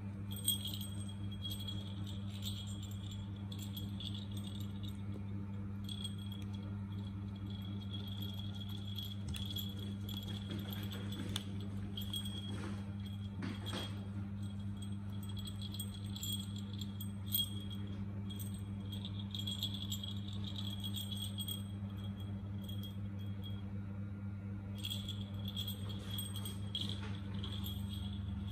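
Plastic cage ball toy with a bell inside, jingling on and off as it is handled and moved about, with a few soft knocks, over a steady low hum.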